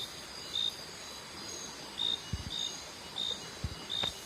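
Insect chorus: short high chirps repeating about every half second over a continuous high-pitched buzz. A few soft low thumps come in the second half.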